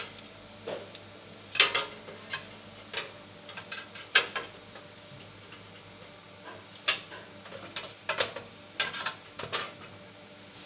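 Irregular clicks and knocks of a computer power supply's cable bundle and its plastic connectors being handled and moved against a metal PC case, with a faint steady low hum underneath.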